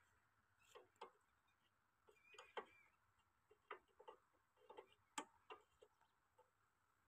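Faint, irregular metallic clicks and taps from hands working the controls of a stopped Ruston Hornsby stationary engine, about a dozen spread unevenly, the sharpest about five seconds in.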